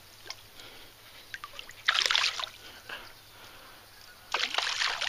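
Water splashing twice, about two seconds in and again near the end, as a hooked largemouth bass thrashes at the surface.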